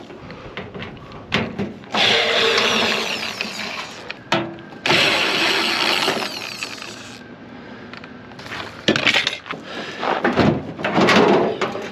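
Cordless drill/driver spinning out screws from a microwave's sheet-metal casing in two runs of about two seconds each, followed by metal parts clattering and knocking as they are handled.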